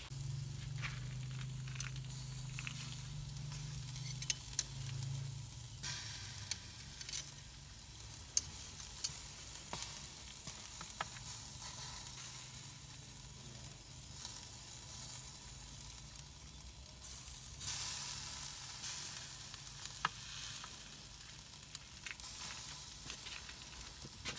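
Beef steaks sizzling in a wire grill basket over hot charcoal, a steady hiss with scattered sharp crackles and pops.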